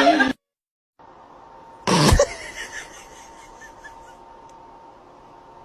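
A single short, sharp sneeze-like burst about two seconds in, then quiet room tone with a faint steady hum. Music cuts off just before it.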